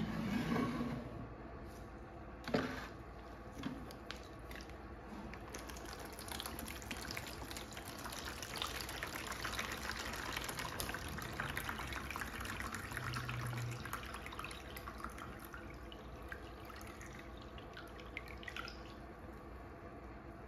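Old electrolyte pouring and splashing out of the filler holes of an upturned 12 V lead-acid car battery into a plastic tub. The pouring builds from about five seconds in and tails off near the end. A couple of knocks from the plastic battery case being handled come in the first few seconds, the sharpest about two and a half seconds in.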